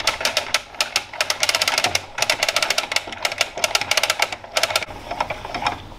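Fast, irregular clicking from a Cannon Uni-Troll 10 STX manual downrigger as its crank handle is screwed on and turned against the spool. The clicks thin out after about four and a half seconds.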